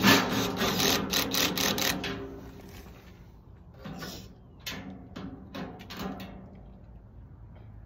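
Steel barbecue-pit parts being fitted together: a loud run of rapid scraping, rattling strokes for about two seconds, then a few shorter metal scrapes and rattles around the middle.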